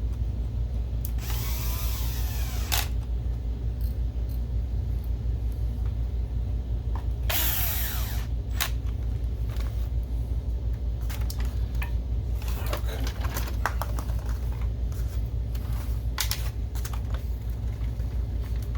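Cordless electric screwdriver driving in the two screws that hold down a projector's DMD chip: two short runs of the motor, its pitch sliding as it spins up and slows, followed by small clicks and taps of handling parts. A steady low hum runs underneath throughout.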